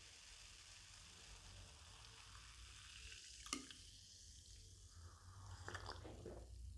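Faint steady hiss of freshly poured Coca-Cola fizzing in a glass. A single sharp click comes about three and a half seconds in, and a few lighter clicks follow near the end.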